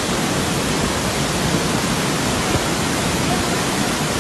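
Waterfall in flash flood, swollen with muddy storm runoff: a steady, loud rush of falling water.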